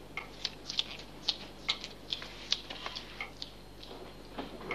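Footsteps on a hard floor, walking away: a string of light, sharp clicks, about three a second, thinning out after about three and a half seconds.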